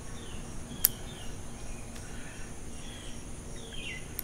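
One sharp snip of bonsai pruning scissors cutting through a Chinese elm twig, about a second in, with a fainter click near the end. Short falling bird chirps and a steady high insect trill sound behind it.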